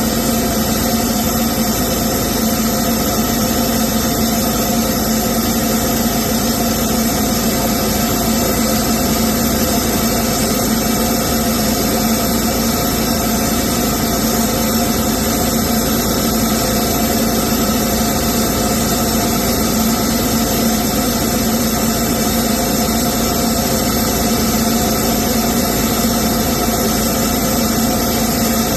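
A diesel engine running steadily at one constant speed, with a strong hum and no revving. It is typical of an engine held at raised idle during a parked exhaust-filter (DPF) regeneration.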